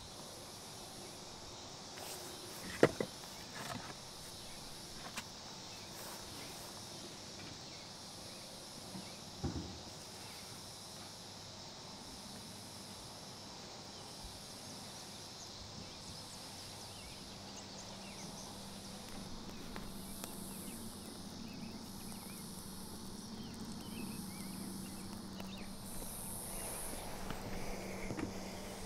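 Split firewood knocking against a steel campfire ring as it is placed: one sharp knock about three seconds in, a few lighter ones just after, and another near the ten-second mark. Under it runs a steady high drone of insects pulsing about once a second. In the second half come small crackles from the newly lit fire and a low steady hum.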